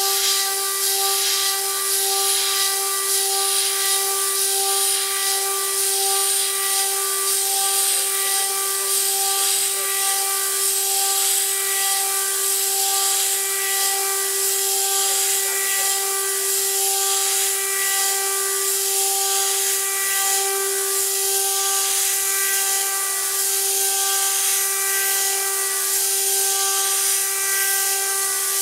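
High-speed CNC router spindle at 24,000 RPM driving a 6 mm three-flute end mill through 6060 aluminium on an adaptive toolpath: a steady high whine with even overtones. Over it runs a constant hiss from the mist coolant spray and the cutting.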